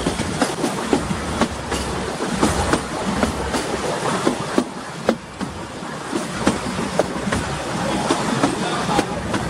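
Narrow-gauge passenger train running along the track: a steady rumble and rattle of the coaches with irregular clicks and clanks of the wheels over the rail joints.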